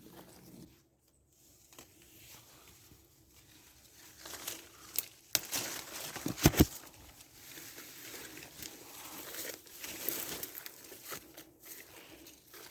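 Rustling and crackling of quince-tree leaves and twigs being handled while the fruit is picked by hand, with a few sharp snaps about five to seven seconds in.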